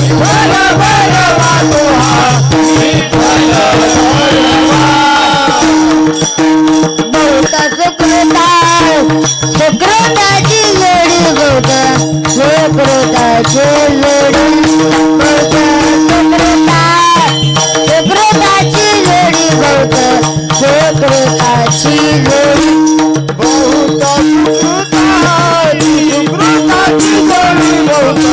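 Devotional kirtan music: a steady drone under a gliding, bending melody line, with hand cymbals and drum keeping a fast, even beat.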